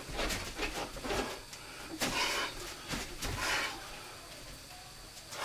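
Fast martial-arts hand movements: a quick run of slaps and knocks, then two hissing swishes with sharp knocks, about two and three and a half seconds in.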